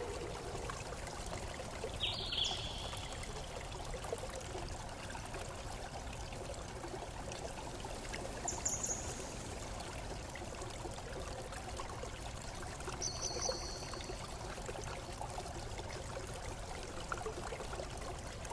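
Steady running water, with three brief high bird calls: one about two seconds in, a higher one around nine seconds and another around thirteen seconds.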